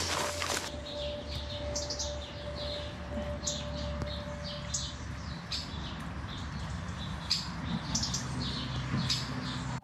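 Wild birds chirping and singing, with many short high calls repeated throughout, over a steady low background with a faint held tone that stops about halfway through.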